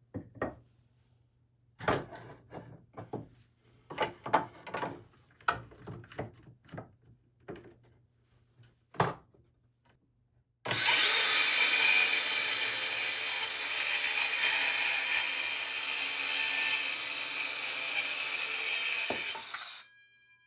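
A series of knocks and clatters as wood and tools are handled, then about eleven seconds in a power tool starts, runs steadily for about nine seconds and stops suddenly.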